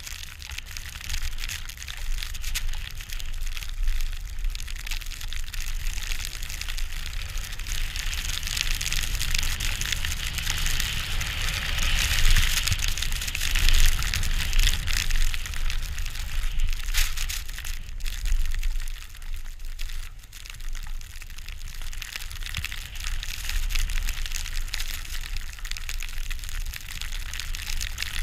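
Steady hiss of a rider sliding through fresh powder snow, swelling louder in the middle, with a low rumble of wind buffeting the camera's microphone.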